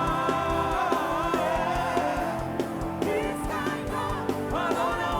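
Live gospel worship music: a voice singing long, gliding notes over a band with a steady drum beat.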